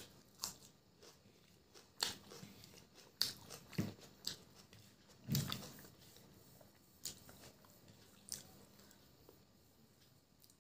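Close-miked mouth sounds of chicken biryani being eaten by hand: chewing and lip smacks, heard as irregular sharp clicks, with a fuller wet smack about five seconds in.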